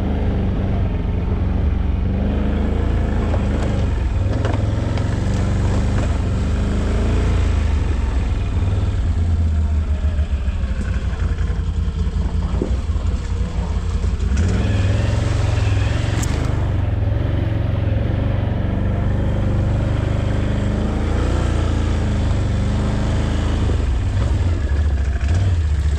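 ATV engine running at low speed while riding slowly over rough ground, its note rising and falling with the throttle and picking up about halfway through.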